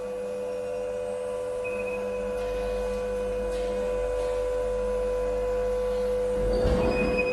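Blackstone EVL 12 vertical log splitter running empty: its 3000 W single-phase electric motor and hydraulic pump give a steady hum as the ram drives the wedge down. A brief low rattle comes near the end.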